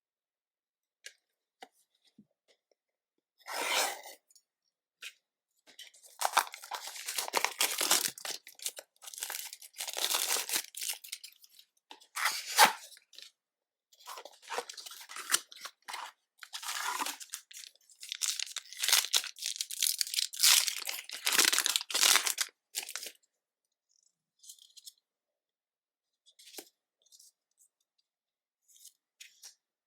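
Plastic booster pack packaging being torn open and crinkled by hand, in irregular crackling bursts through the middle, with scattered light clicks and taps around them.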